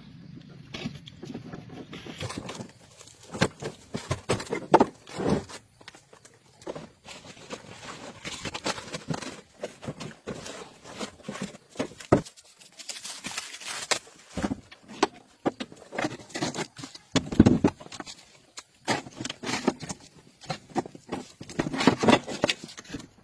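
Irregular knocks, clinks and scrapes of hand tools and metal engine parts being worked on, coming unevenly with louder strikes scattered through.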